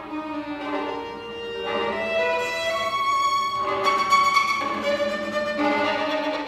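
String quartet of two violins, viola and cello playing sustained bowed notes in the middle and upper range, the notes changing about once a second and the music growing louder through the passage.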